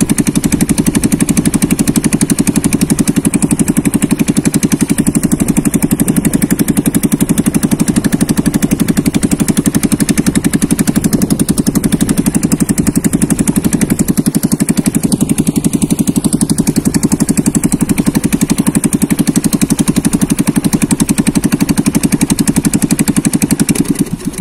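Small inboard gasoline engine of a narrow motorized boat running steadily under way, with a fast, even beat. It drops off sharply right near the end.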